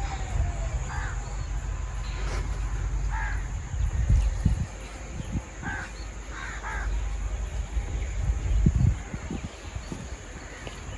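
A bird, crow-like, giving several short harsh caws, most of them in the first seven seconds, over a steady low rumble.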